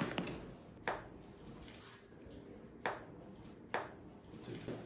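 Joints cracking during a chiropractic adjustment: a few sharp pops, two right at the start, one about a second in, and two more close together near the end.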